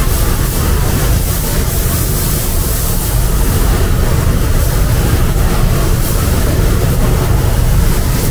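Paint spray gun hissing steadily as paint is laid on in a heavy coat, with a steady low rumble underneath.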